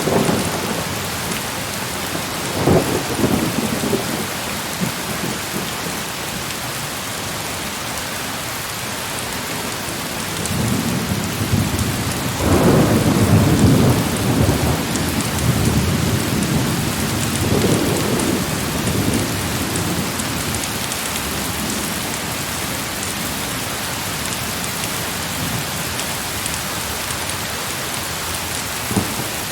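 Heavy rain falling steadily, with thunder rolling over it: a short rumble about three seconds in, then a long, building rumble through the middle.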